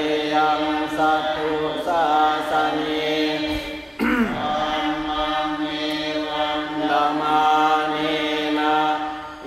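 Buddhist Pali chanting by a monk together with lay followers, recited in a steady near-monotone. There is a short pause for breath about three and a half seconds in, and then the next phrase begins.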